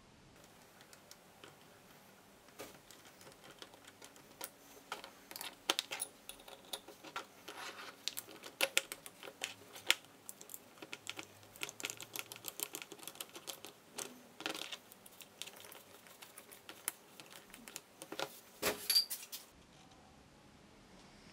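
Irregular clicks and light metallic clinks of small steel jig parts being handled and fitted together by hand, wing bolts being threaded into the square-tube frame, with a louder cluster of clicks near the end.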